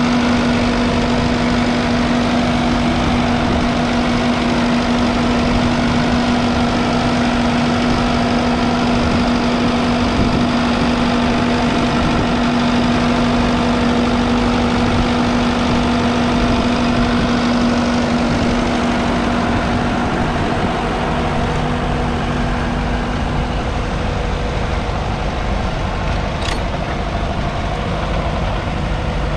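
1959 Massey Ferguson 65 tractor's 3.3-litre four-cylinder diesel engine running steadily. The sound eases slightly about two-thirds of the way through.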